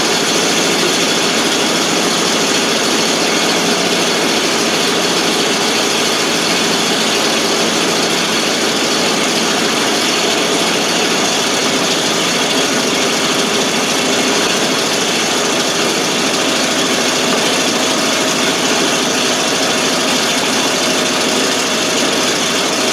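1988 FMC 6000 truck's carbureted engine running at a steady idle just after a hard start, its exhaust loud and even with no revving.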